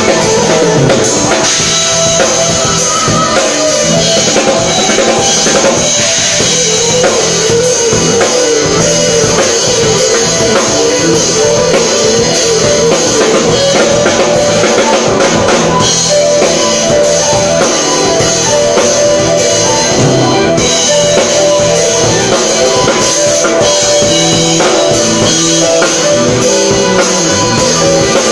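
Drum kit played continuously in a rock style, with kick drum and cymbals, alongside steady pitched bass and melodic parts.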